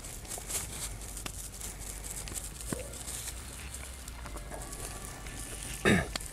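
Cling film crinkling and rustling as a log of compound butter is rolled and twisted in it by gloved hands, with a brief louder sound near the end.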